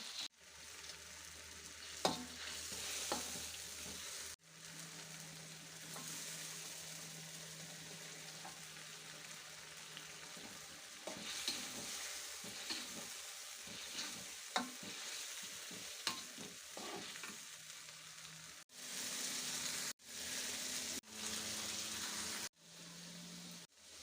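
Food sizzling as it fries in hot oil in a pan and is stirred, with sharp taps of the spatula against the pan every so often. The sizzle breaks off abruptly several times in the last few seconds.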